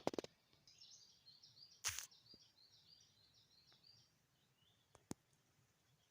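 Faint bird song, a quick run of chirping notes, with a short noisy rustle about two seconds in and a single sharp click near the five-second mark.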